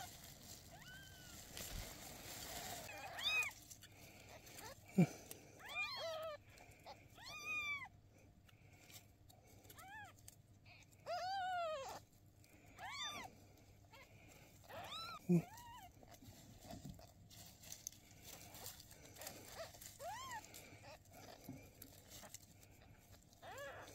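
Newborn kittens crying: about a dozen high-pitched mews, each rising and then falling in pitch, spaced a second or more apart.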